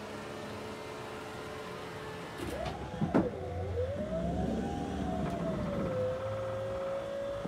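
Electric motors of a 1958 Ford Skyliner's retractable hardtop mechanism start about two and a half seconds in and run with a whine that rises and falls in pitch. A sharp click comes just after the start, and the whine then settles into a steadier, slowly rising tone.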